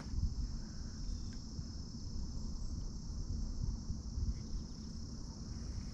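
Insects keeping up a steady, high-pitched, unbroken drone, with a low, uneven rumble beneath it.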